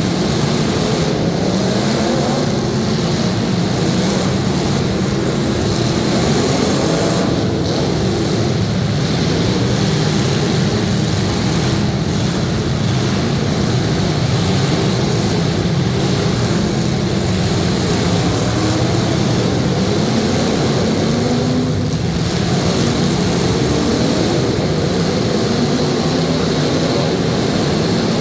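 Several demolition derby cars' engines running and revving together in a loud, continuous din, the pitch rising and falling as the drivers work the throttles.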